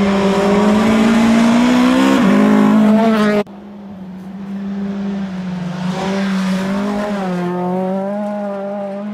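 Volvo 240 rally car's engine running at high revs, heard from inside the car, its pitch slowly climbing. About three and a half seconds in the sound drops sharply in level, then the engine carries on quieter with its pitch rising and falling.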